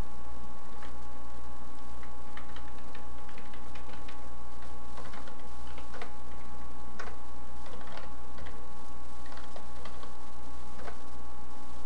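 Computer keyboard typing: irregular keystroke clicks, a few a second, over a steady electrical hum with a faint high whine.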